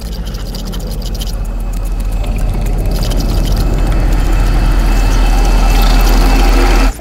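Soundtrack riser: a deep, noisy swell that grows steadily louder for several seconds, then cuts off abruptly near the end.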